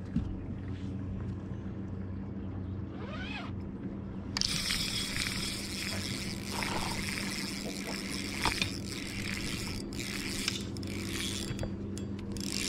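Spinning reel being cranked while a hooked fish is played, its gears and drag giving a scratchy, ticking sound from about four seconds in, over a steady low hum.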